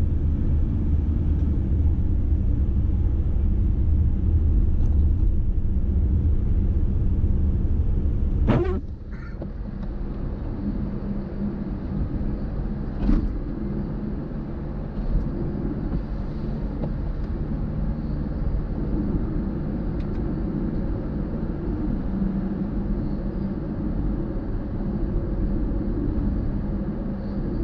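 Car driving on the road: a steady low rumble of tyres and engine. A sharp knock comes about eight seconds in, after which the rumble is quieter, and a smaller click follows a few seconds later.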